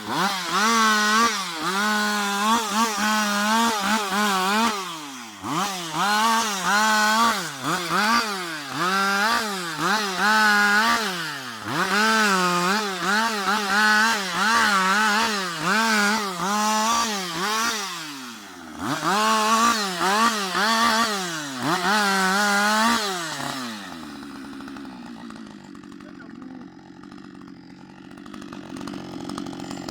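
Husqvarna 560 XP two-stroke chainsaw cutting through wood at full throttle, its pitch wavering under load and dropping several times as the throttle is eased before revving back up. Near the end it falls to idle for several seconds, then revs up again.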